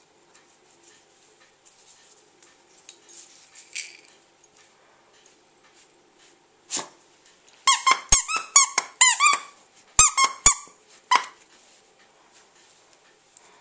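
A Yorkshire terrier biting a plush penguin squeaky toy. After faint rustling there is one squeak about seven seconds in, then a quick run of squeaks and three more single squeaks.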